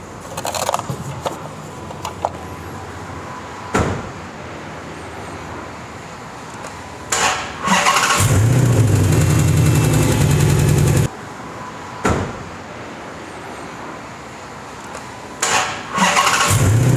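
Chrysler 5.7-litre HEMI V8 cranked and started, running for about three seconds with a fast ticking knock before stopping abruptly, then cranked and started again near the end. The knock is the sign of failing valve lifters, which the mechanic traces to bad lifters and a worn camshaft. A few clicks and a sharp thump come before the first start.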